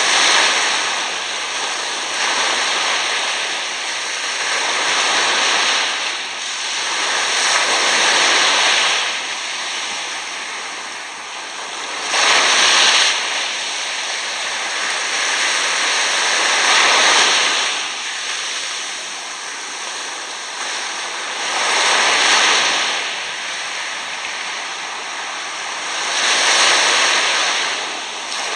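Small waves washing up and back over coarse sand at the water's edge, each wash swelling into a hiss and fading, about every four to five seconds.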